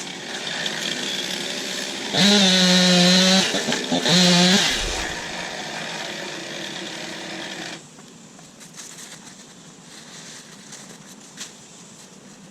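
Two-stroke chainsaw running at idle, revved to full throttle twice at a steady high pitch, about two seconds in and again a second later. About eight seconds in, the engine sound drops away suddenly.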